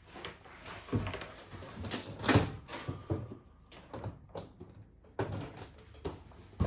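Scattered knocks and clicks of the ash vacuum and its power cord being handled as it is plugged into a wall socket, the loudest knock a little over two seconds in; the vacuum's motor is not yet running.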